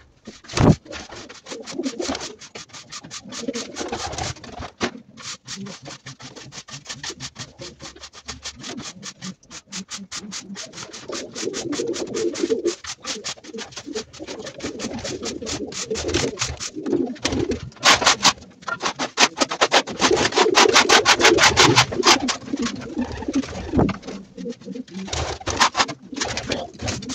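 Domestic pigeons cooing throughout, over the rasping strokes of a long-handled scraper dragged across the loft floor to clear droppings and litter. The strokes come in a fast, loud run a little past the middle.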